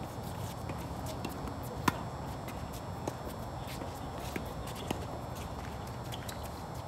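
Tennis ball being hit back and forth in a doubles rally on a hard court: several sharp pops of racket strikes and bounces, a second or so apart, the loudest about two seconds in, over a steady background hum.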